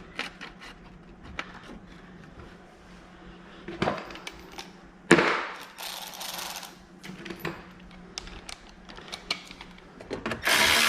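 Hand work in a car's engine bay: scattered light clicks and clanks of parts and tools being handled, with a sharp knock about five seconds in followed by a brief scraping rustle, and a louder rushing scrape near the end.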